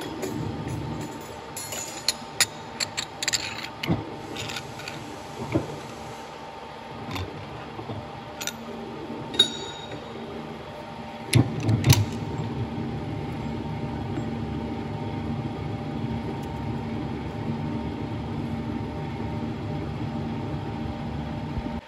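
Steady machine hum in a machine shop, with sharp metallic clinks and knocks of steel parts at a lathe chuck through the first half. The heaviest knocks come in a cluster about 11 to 12 seconds in.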